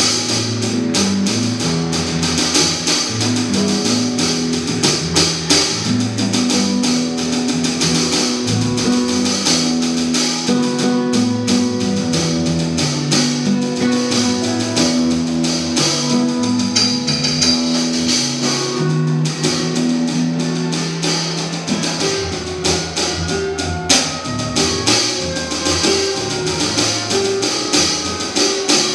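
Live band playing a soundtrack to a film: guitar holding long notes over drums with a steady wash of cymbals.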